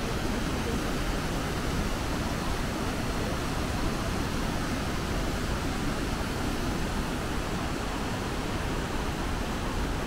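Kegon Falls' steady roar of falling water: an even, unbroken rush, heaviest in the low end.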